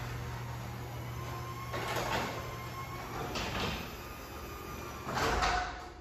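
Sectional garage door closing under a belt-drive opener: a steady motor hum with the rollers rumbling along the tracks in three swells. The loudest comes about five seconds in as the door reaches the floor, and the opener stops just before the end.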